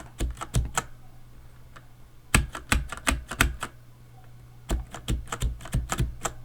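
Cherry MX mechanical keyboard switches tapped lightly without bottoming out: a few clicks, then two quick runs of about half a dozen keystrokes each, with short pauses between. A steady low hum runs underneath.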